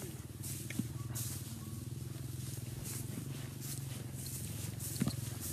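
Footsteps crunching on dry straw along a path, over a steady low pulsing rumble.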